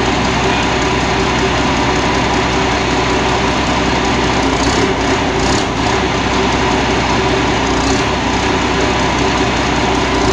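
Tracked rice combine harvester's engine running steadily while the machine stands still, an even mechanical drone with no change in speed.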